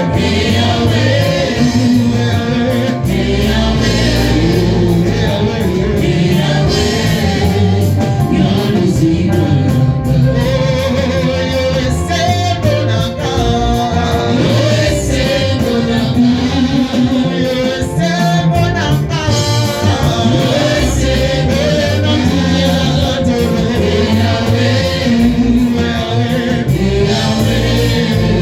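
Congregation or choir singing a gospel song with musical accompaniment and a steady bass line.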